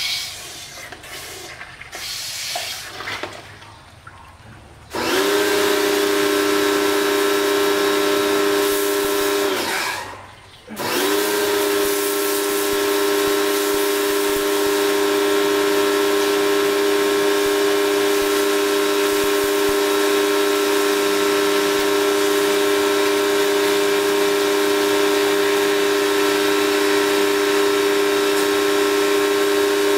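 Small pressure washer's motor-driven pump starting up and running with a steady hum over the hiss of its water jet. Near ten seconds it winds down and stops, which fits its auto-stop when the trigger is let go, and a second later it spins back up and runs on.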